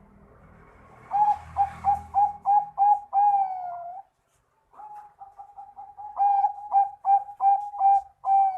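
Zebra dove (Bangkok-type perkutut) singing: a fast run of short, clipped coos ending in a longer, slightly falling coo, then after a short pause a second run that starts soft, grows louder and again ends on a long coo.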